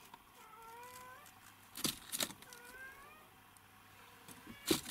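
A cat meowing faintly twice, each call rising in pitch. Sharp clicks or knocks, louder than the meows, come about two seconds in and again near the end.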